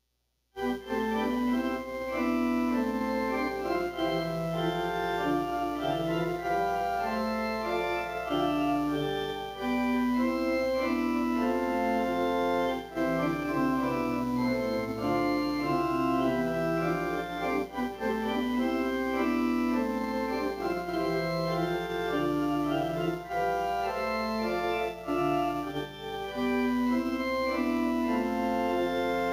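Organ music: sustained chords over a moving bass line, starting about half a second in.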